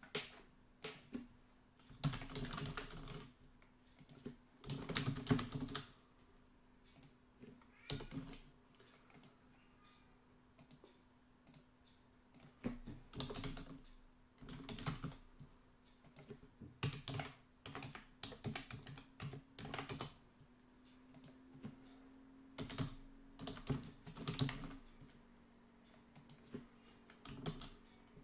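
Typing on a computer keyboard in short bursts of keystrokes with pauses between, over a faint steady hum.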